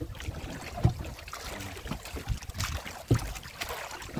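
Water sloshing and splashing around a net fish trap being hauled against a small boat's side, with a few dull knocks at irregular intervals.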